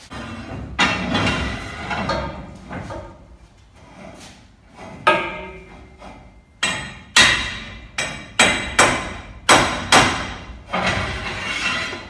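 A hammer striking about nine times, sharp blows with short ringing tails, several in quick succession between about five and ten seconds in. Rougher knocking and scraping noise comes before and after the strikes.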